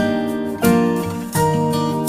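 Background music: acoustic guitar strumming chords, a new strum about every 0.7 seconds.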